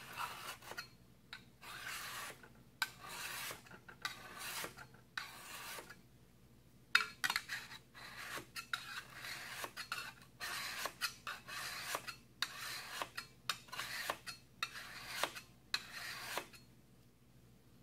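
Diamond hone rubbed in strokes against a carbon-steel card scraper to remove the burr and smooth the edge: a few longer rasping strokes, a short pause about six seconds in, then quicker strokes along the edge that stop near the end.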